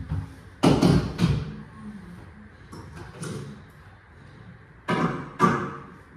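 Kitchen clatter as items and cabinet doors are handled at the counter: a cluster of about three knocks and clanks about a second in, a lighter knock around three seconds, and two more sharp knocks around five seconds.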